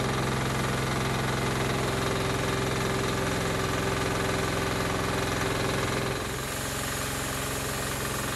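Engine of a homemade bandsaw mill running steadily as the saw head works along a log. The tone and level shift slightly about six seconds in.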